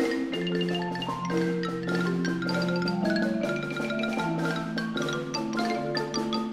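Xylophone solo played fast with hard mallets, a quick run of bright struck notes, over a mallet-percussion ensemble accompaniment of marimbas with long held lower notes.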